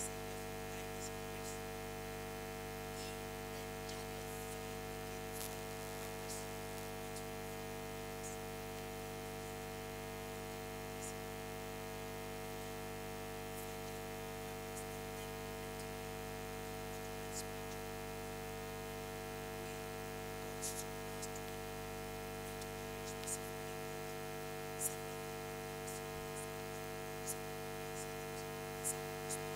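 Steady electrical mains hum made of many held tones, with scattered faint clicks, a few louder ones near the end.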